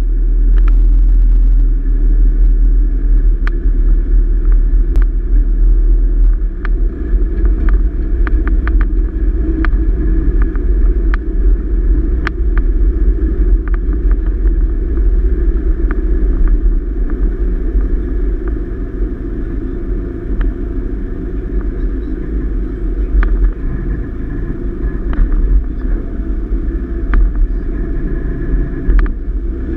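Steady low rumble of a vehicle driving slowly, picked up by a camera mounted on the vehicle, with scattered sharp clicks and knocks throughout.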